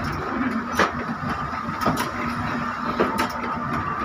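A vehicle driving on a wet road in heavy rain, heard from inside the cabin: a steady engine and road noise with a constant high whine, and irregular sharp taps of rain striking the windscreen.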